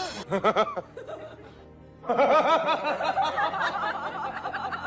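A man laughing over music: a few short chuckles at the start, then, after a quieter second, a longer run of laughter from about two seconds in.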